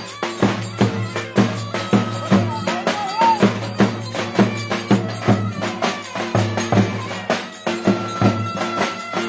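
Traditional folk music: a melody instrument over a steady low drone, with a regular percussive beat of about two strikes a second.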